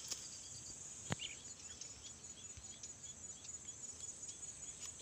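Insects trilling in a steady, high, rapidly pulsing buzz, with a row of faint short chirps below it and one sharp click about a second in.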